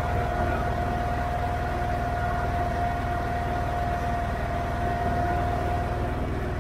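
Allis-Chalmers 917 Hydro garden tractor's engine running steadily as the tractor drives, an even low rumble with a steady high whine over it.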